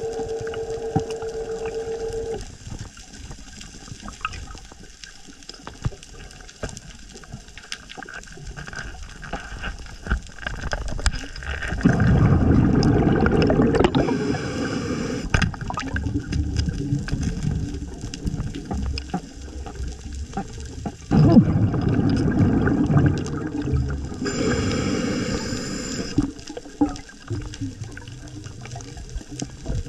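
Underwater sound of a scuba diver breathing: the regulator's exhaled bubbles gurgle in loud surges lasting a few seconds, over a constant crackle of faint clicks from the reef. A steady hum stops about two seconds in.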